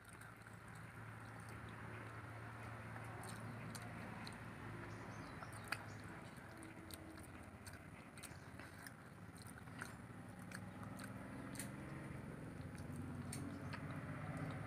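Close, quiet eating sounds: chewing, small wet mouth clicks and fingers squishing rice and curry gravy on a plate. A steady low hum lies underneath, and a low drone grows louder over the last few seconds.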